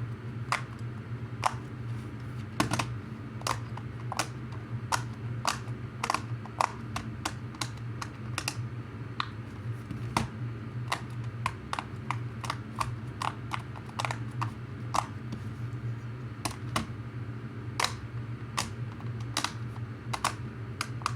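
Green pineapple-shaped plastic fidget toy being clicked repeatedly by hand: sharp, irregular clicks, about two to three a second.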